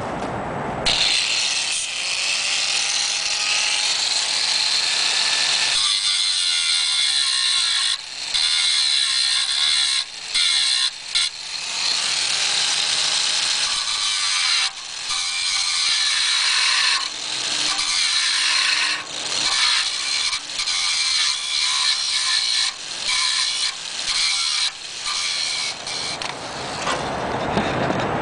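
Electric angle grinder cutting off the protruding bolt ends on steel theater-seat end standards: a steady high-pitched grind that starts about a second in and breaks off briefly many times as the disc comes on and off the metal. The bolt ends are being ground away because their threads were snapped off and mangled, so the nuts cannot simply be undone.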